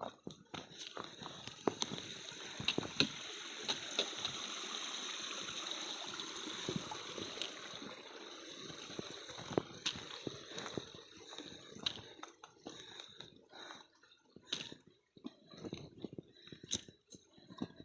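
A small woodland stream or cascade running and gurgling over rocks. It grows louder for several seconds early on and then fades. Irregular short crunches and clicks run through it, as of footsteps on the rocky trail.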